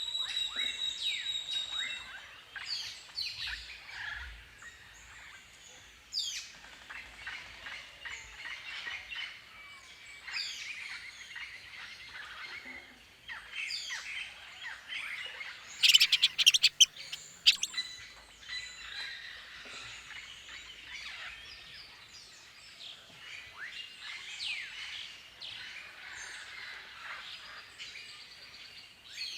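Many birds chirping and calling in quick, overlapping short notes. A brief run of sharp clicks or knocks comes a little past halfway.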